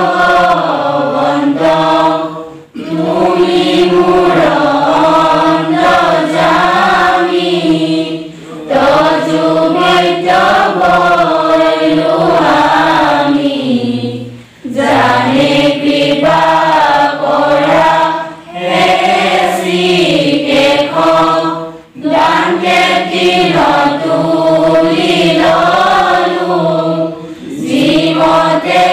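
A group of voices chanting a devotional prayer together, sung in phrases of several seconds each with a short break for breath between them.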